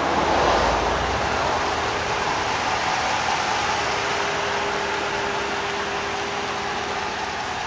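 The Dodge Ram's 5.7-litre Hemi V8 idling steadily under a hiss of outdoor noise, with a brief low rumble in the first second.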